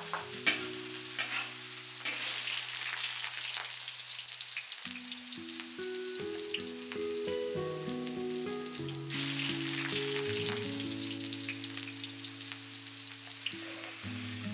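Chopped bamboo shoots and pickled mustard greens sizzling as they stir-fry in a hot wok, with a few sharp clinks of the utensil against the wok in the first second or so. The sizzle swells twice. Soft background music with long held notes plays underneath.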